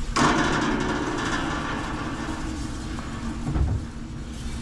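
Plastic spice shaker rattling as barbecue rub is shaken out over a grill's stainless steel heat plates. It starts suddenly and fades out after about three and a half seconds, with a low thump near the end.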